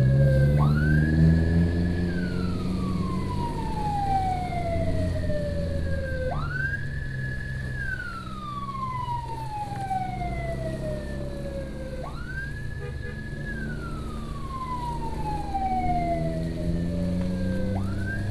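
Emergency siren wailing in a repeating cycle. Each cycle jumps up quickly, holds high for about a second, then slides slowly down over about four seconds, four times in all. Under it runs the steady low noise of the motorcycle's engine and wind.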